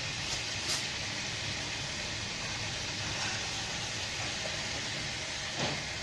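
Red snapper head halves frying in hot oil and spice paste in a wok: a steady sizzle with a couple of small pops about half a second in.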